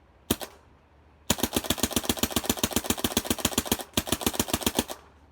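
Shocktech Tremor-series Autococker paintball marker firing: two quick shots, then a long rapid string at about ten shots a second, a brief break, and a shorter string.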